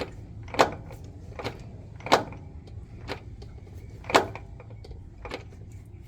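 Knocking from a Toyota Sienna that the owner attributes to the transmission and questions as not normal: three loud, sharp knocks and several fainter ones, irregularly spaced, over a steady low hum.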